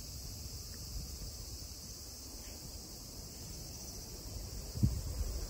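Steady high-pitched chirring of insects over a low rumble, with a brief thump near the end.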